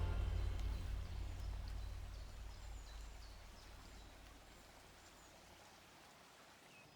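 Faint outdoor ambience: a low rumble that fades away, with several short, high bird chirps in the first half and another near the end.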